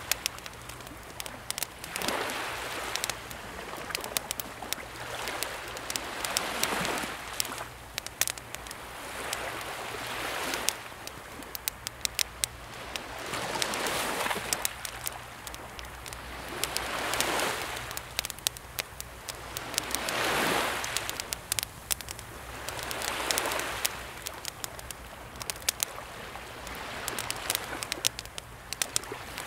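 Small sea waves washing in and drawing back about every three seconds, with a wood campfire crackling in sharp pops throughout.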